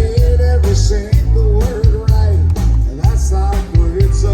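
Live band music: a rock song with heavy bass, drum kit and guitar, and a sung melody over it.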